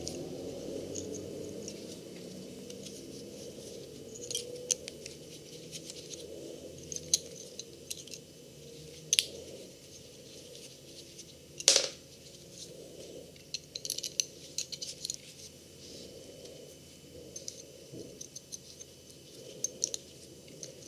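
Steel snap hook being handled: scattered small metal clicks and taps from its latch and gate, the sharpest a little past the middle.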